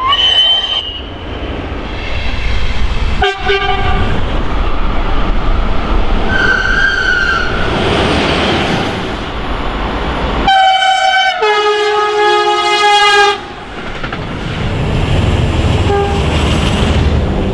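Trains passing at speed with the rumble and clatter of wheels on rail. A brief horn blast sounds about six seconds in. A long two-tone horn follows from about ten and a half to thirteen seconds in, a higher note then a lower one, with a faint horn note near the end.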